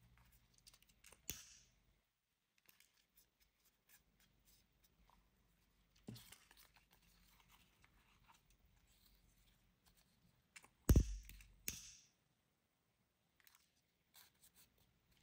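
Small handling sounds of satin ribbon and a plastic lighter: soft rustles and scattered clicks, with a few short scrapes. The loudest is a sharp knock with a low thump about eleven seconds in, followed by another scrape.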